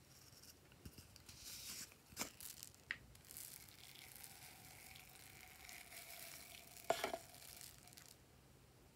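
Small foam beads pouring out of a plastic bottle into a bowl of clear slime, a soft rustling hiss, with a few sharp taps of plastic. The loudest tap is about seven seconds in.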